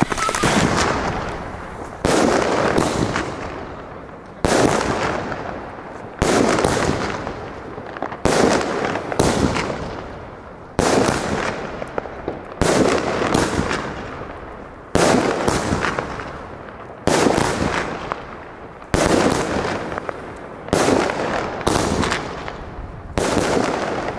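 Pyrolab firework battery firing shot after shot, about sixteen in all at roughly one every one and a half seconds; each is a sharp bang that fades away over a second or so.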